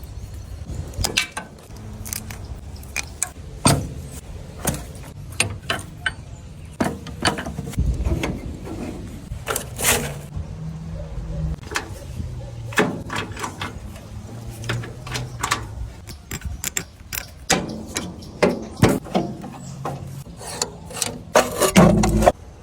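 Irregular clicking, clanking and knocking, like tools working on metal parts, over a low steady hum.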